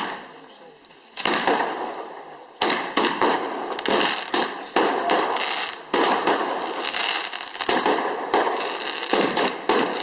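Fireworks going off: a string of sharp bangs about once a second, each trailing off into crackling, running almost together from about a quarter of the way in.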